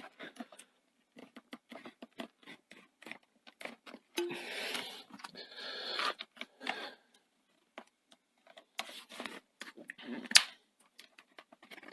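A plastic plectrum scraping and clicking along the seam between a Chromebook's plastic base and its metal top cover as the base is pried up, with a run of scratching in the middle and one sharper click near the end.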